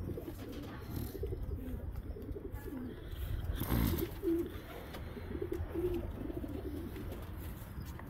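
Domestic pigeons in a loft cooing, many short low coos overlapping throughout. A brief flurry of wingbeats comes a little before the middle.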